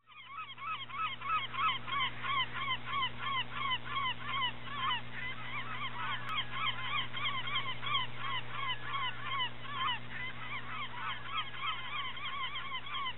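A large flock of water birds calling all at once, many short rising-and-falling calls overlapping several times a second, over a low steady hum. It fades in at the start.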